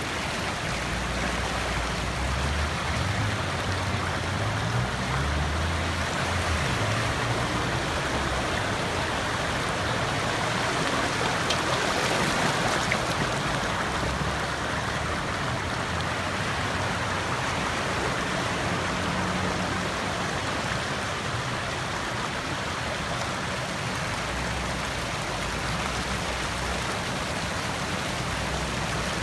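Muddy floodwater rushing fast across pavement and around a fire hydrant: a steady wash of running water that swells a little around the middle.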